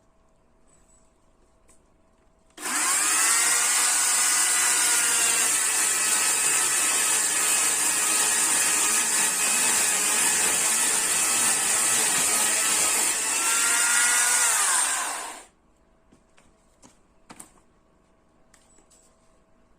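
Chainsaw starting up abruptly about two and a half seconds in, its pitch climbing quickly to a steady run for about twelve seconds, then falling as it winds down and stops.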